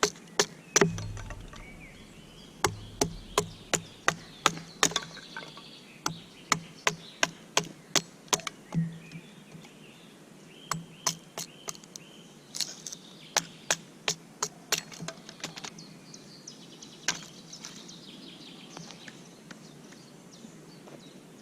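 Sharp knocks struck in quick runs of several, about three a second, thinning out to single knocks in the later part, with birds chirping faintly behind.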